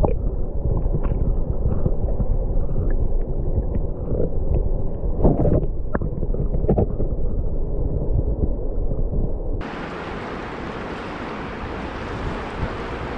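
River current heard through an underwater camera: a muffled low rush and gurgle with scattered bubbly clicks and one louder bubbly knock about five seconds in. A little after nine seconds it switches abruptly to the open, brighter hiss of the fast river running over stones, heard in the air.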